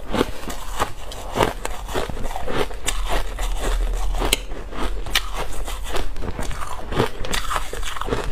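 Crushed ice being chewed into a close microphone: a dense, irregular run of crisp crunches, several a second.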